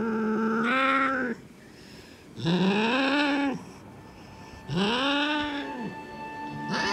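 Domestic cat meowing loudly while being handled, three long drawn-out yowls, each rising then falling in pitch. The first is already under way at the start, the others follow about a second apart.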